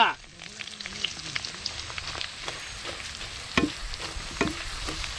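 Panch phoron and dried red chillies sizzling and crackling in hot oil as a tempering, with many small pops and two louder clicks past the middle.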